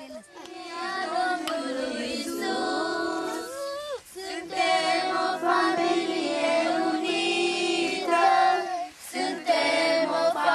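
A group of voices, children's and women's, singing a song together in held notes, with short breaks between phrases about four and nine seconds in.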